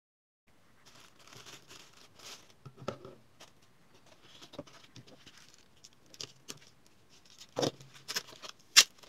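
After a moment of silence, a plastic bag rustles as the magnifier lamp is unwrapped, followed by scattered clicks and knocks of small parts being handled. The loudest clacks come near the end as AA batteries are picked up.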